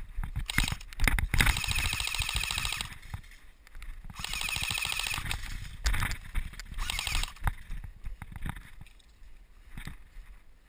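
Airsoft gun shooting: a few single shots at the start, then three rapid full-auto bursts of about a second each, with faint scattered clicks near the end.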